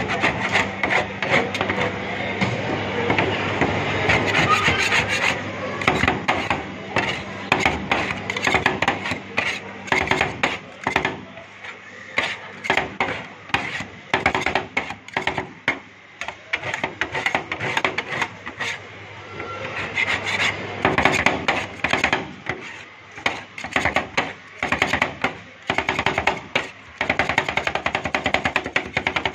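Two metal spatulas rapidly chopping and scraping ice cream on a chilled steel cold plate, making a fast, uneven clatter of metal on metal. A low steady hum runs underneath and stops about two-thirds of the way through.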